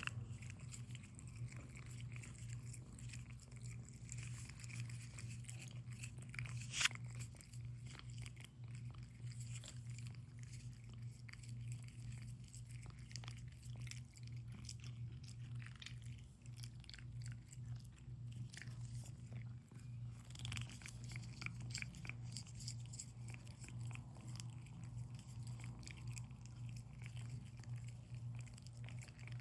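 Cat licking a Churu paste treat: rapid, irregular wet smacking and lapping clicks, over a steady low hum.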